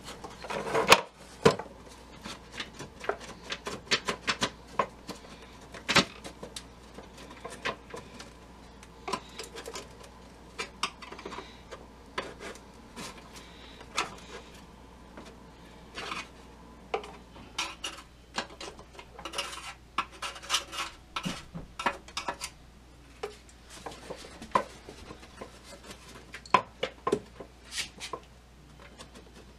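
Irregular metallic clinks and clicks as hand tools and the metal chassis and hardware of a Zenith B600 Trans-Oceanic radio are handled while it is being worked free of its cabinet, with a louder clatter about a second in.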